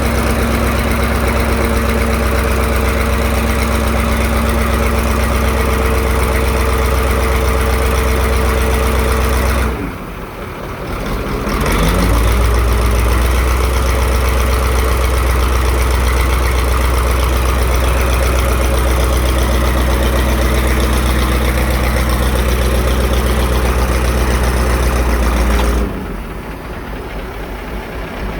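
Diesel engine and hydraulic power pack of a static pile driver running steadily under load with a heavy low hum. The sound drops off about ten seconds in, climbs back up with a rising pitch, and drops again near the end.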